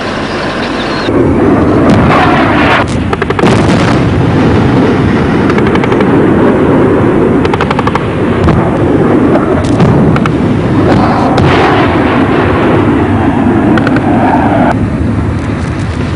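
Heavy, sustained gunfire from about a second in, with bursts of rapid automatic fire cutting through a dense, continuous barrage.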